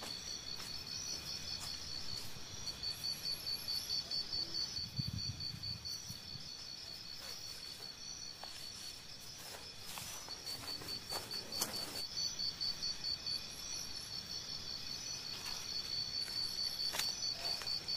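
Insects chirring in a steady high, rapidly pulsing trill that fades for a few seconds in the middle and swells again near the end, with scattered footsteps on dry grass and leaves.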